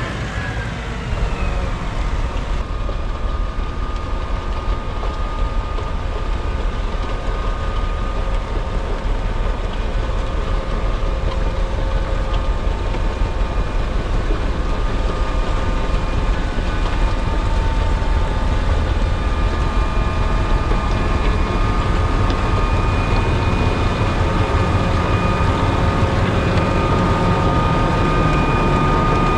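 Heavy diesel snow-removal machinery working steadily, the engine sound low and constant with a steady whine above it.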